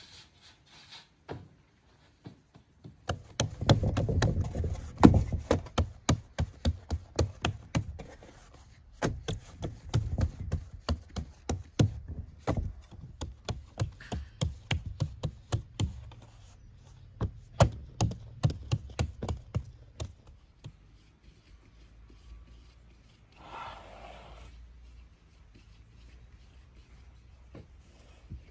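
Bread dough being patted and slapped between the hands while it is shaped into a ball, a quick run of soft pats with low thumps. It stops about two-thirds of the way through, and a short rustle follows.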